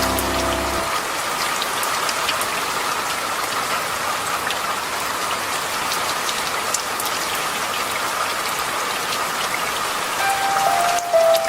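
Steady rain falling on a surface, an even hiss with scattered sharp drop ticks. Soft pitched music fades out about a second in and comes back near the end.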